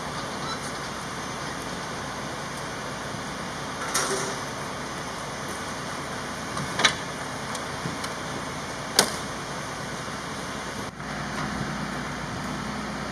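Steady road traffic noise, broken by three sharp knocks or clanks a few seconds apart; a low engine hum comes up near the end.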